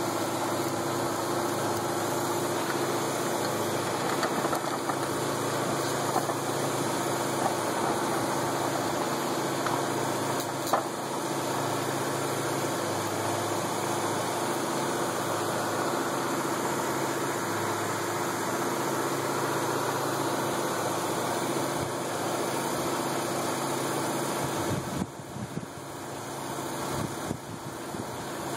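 A motor running steadily with an even hum. Its level drops briefly near the end.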